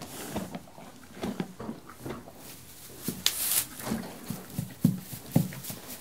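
Horse munching hay: irregular crunching chews and rustling of hay, with a brief louder rush of noise about three seconds in and a few sharper knocks near the end.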